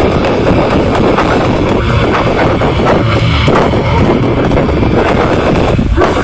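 Metalcore band playing live through a festival PA: loud, dense distorted guitars and drums.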